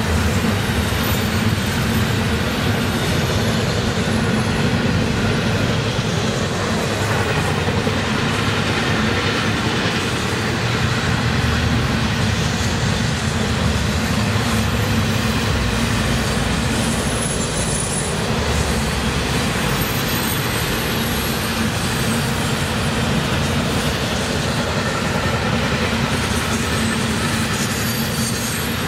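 Double-stack intermodal freight cars of a Florida East Coast Railway train rolling past: a steady rumble of steel wheels on rail, with a few brief, faint high wheel squeals.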